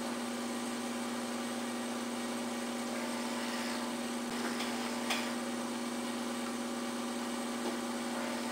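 Steady electric hum of a portable esthetic vacuum-suction unit's pump, run at a low suction setting for lymphatic drainage. A short light click comes about five seconds in, and a fainter one near the end.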